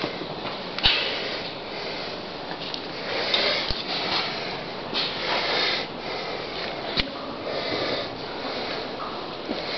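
Rustling and breathy hiss close to the microphone, with a few sharp clicks: handling noise from a handheld camera being moved about.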